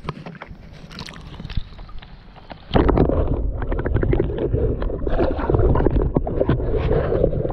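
Wind buffeting a small camera microphone over lake water, then about three seconds in the camera plunges under the surface and the sound turns into loud, muffled underwater sloshing and bubbling with many quick clicks and knocks.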